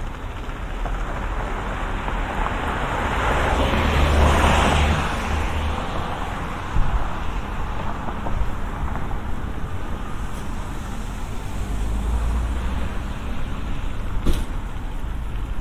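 Street traffic: a car passes, swelling to its loudest about four seconds in and fading away, over a steady low city rumble, with two short sharp knocks later on.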